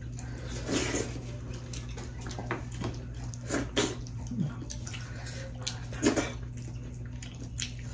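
Close-up wet eating sounds: mouths chewing, smacking and slurping soft millet dhido and soup eaten by hand, in short uneven bursts that are loudest about a second in, around the middle and about six seconds in. A steady low hum runs underneath.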